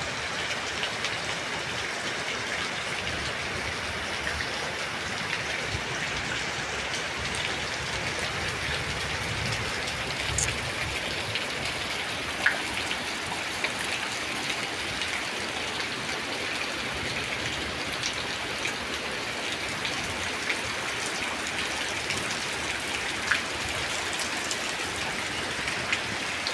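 Light drizzle falling steadily: an even hiss of rain with many small drop ticks and a few louder single drops hitting close by.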